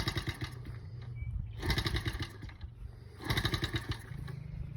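Small single-cylinder engine of a Honda Z50 minibike firing in three short, sputtering bursts about a second and a half apart, with a low steady hum between them. The engine catches during the starting attempts but does not settle into running.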